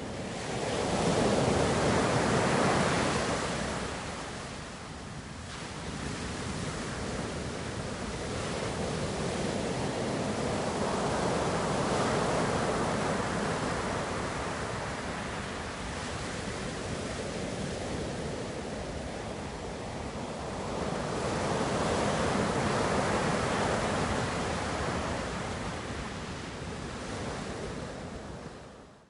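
Ocean surf: waves breaking and washing in as a continuous rush, swelling three times about ten seconds apart.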